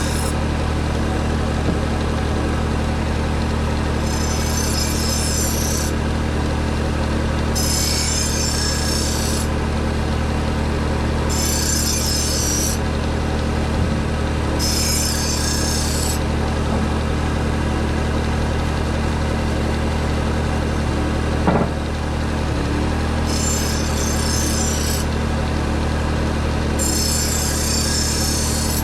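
Bucktool 1x30 low-speed belt sharpener running with a steady motor hum, while a blade is drawn across the belt in about six passes of a second or two each, every pass adding a high grinding hiss. A single knock about two-thirds of the way through.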